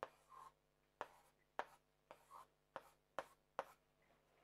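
Felt-tip marker writing on a whiteboard: a series of short, faint ticks and scrapes as each letter stroke is drawn.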